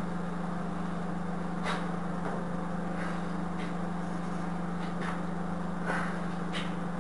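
A steady low hum, with about seven faint short scrapes and clicks as bare fingers press and smooth silicone sealant into a tile mold.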